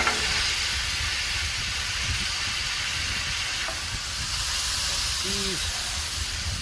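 Smash burger patties sizzling steadily on a hot Blackstone flat-top griddle, an even frying hiss. A single sharp tap at the very start.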